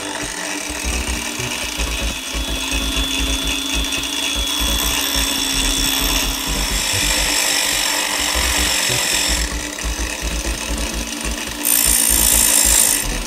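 Stand-mounted angle grinder running steadily with a motor whine, while a small metal piece is held against its abrasive disc and ground with a rasping hiss. The grinding gets louder and harsher near the end as the piece is pressed into the disc.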